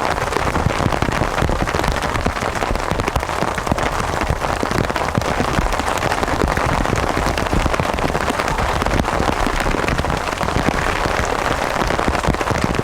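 Steady rain, a dense, even patter of drops striking a surface close to the microphone.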